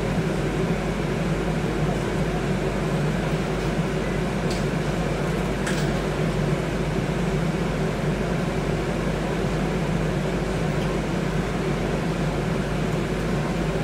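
Scania N250UD bus's five-cylinder diesel idling steadily, heard inside the passenger saloon as a constant low hum, with a couple of faint ticks about five seconds in.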